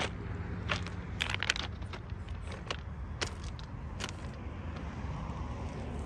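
Footsteps crunching on gravel and loose dirt: irregular sharp crunches, several close together about a second in, over a steady low rumble.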